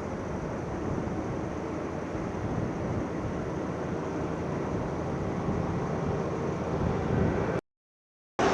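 Steady engine noise of heavy vehicles, growing a little louder, then cut off abruptly by a brief dead silence near the end.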